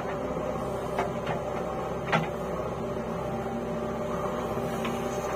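JCB 3DX backhoe loader's diesel engine running steadily under load as the backhoe digs and lifts a bucket of earth, with a few short clanks about one and two seconds in.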